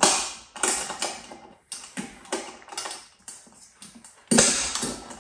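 Irregular clicks and rustles of hands handling a portable gas grill and its plastic wrapping, with a sharper click about four seconds in.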